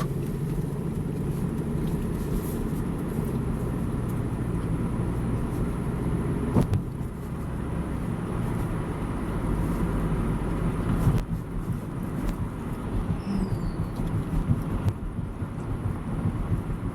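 Steady road and engine noise of a car heard from inside the cabin while driving, a low rumble with a couple of light knocks about six and a half and eleven seconds in.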